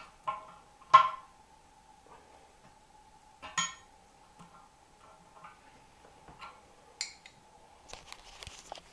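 Spanner and screwdriver clinking against a seized metal cistern fixing screw and its back nut while the nut is worked at. Scattered sharp clinks, the loudest about a second in, and a quick run of small clicks near the end, over a faint steady high hum.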